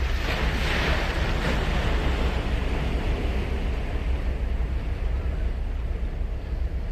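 Sea surf on a sandy beach: a wave breaks early on with a hissing rush, and its wash fades away over the following seconds, over a steady low rumble.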